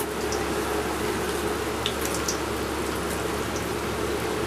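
Vegetable balls deep-frying in hot oil in a steel kadai: a steady bubbling sizzle, with a few light clicks.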